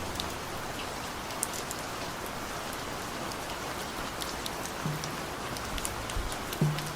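Steady rain falling on a surface, with scattered sharp drops ticking through it. A couple of short low notes come in near the end as the next song begins.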